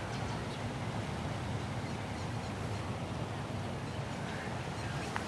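Steady low outdoor background rumble, with a few faint clicks and ticks.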